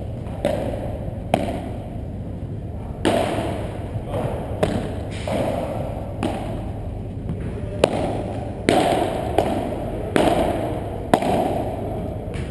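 Padel rally: a ball struck back and forth with paddles, sharp pops about once a second, each ringing on in the echo of a large hall.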